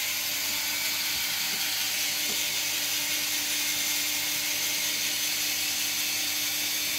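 Value rotary-vane vacuum pump running steadily: an even mechanical hiss with a low hum underneath.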